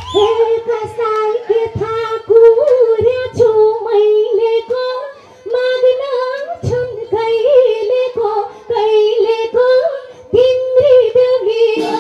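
A woman singing solo into a microphone, amplified through a hall PA, with no instrumental backing. She sings long held notes on a narrow range of pitch, with short breaks between phrases.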